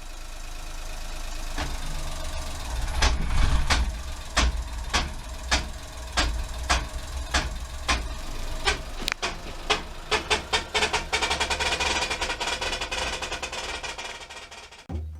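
Honda Acty van (HH6) under way, its engine droning low under a rhythmic click-knock that comes about twice a second and then quickens steadily as the van gathers speed, with road noise rising. This is the abnormal noise that the owner suspected came from the transmission.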